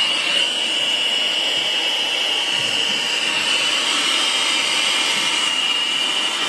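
Handheld gas soldering torch burning with a steady hiss as its flame heats a copper pipe fitting before soldering.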